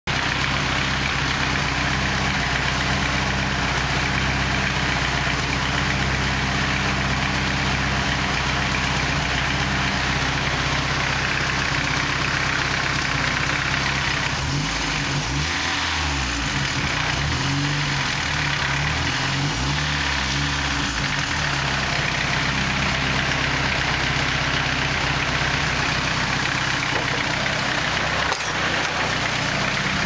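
Turbocharged Nissan KA24 2.4-litre four-cylinder idling steadily on a cold start, with the engine noise the owner tags as a rattle and is still chasing. Between about 15 and 21 seconds in the idle speed wavers up and down, then settles again.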